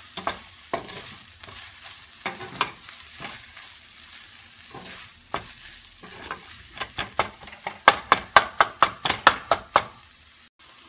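A spatula stirring shredded chicken in a frying pan over a faint sizzle, with scattered knocks against the pan. From about six and a half seconds comes a quick run of sharp taps on the pan, about four a second, as the chicken is chopped up with the spatula's edge.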